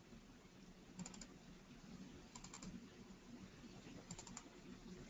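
Faint clicking at a computer, in three short clusters of a few quick clicks each, about a second and a half apart, over near silence.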